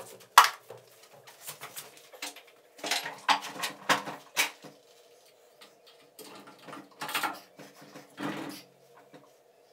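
Irregular knocks, clicks and scrapes of motor covers and housings being handled and fitted onto the milling machine's spindle motors, with a sharp click about half a second in and denser clatter around the middle and near the end. A faint steady hum runs underneath.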